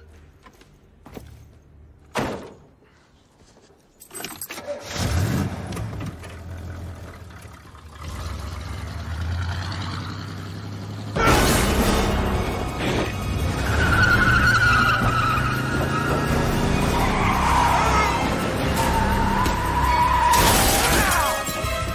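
Film sound mix of a car engine starting to run and then revving hard as the car pulls away fast, with tyres squealing, over a tense film score. It starts quietly with a few small clicks; the engine comes in about four seconds in and gets much louder about eleven seconds in.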